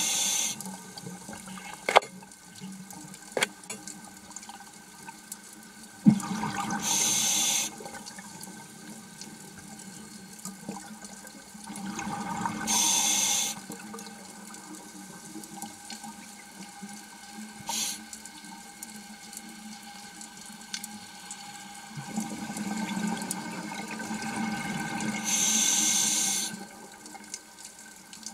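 Underwater scuba diver's regulator breathing, heard as four gushing bursts of exhaled bubbles, with quieter stretches between them. A few sharp single clicks fall in between.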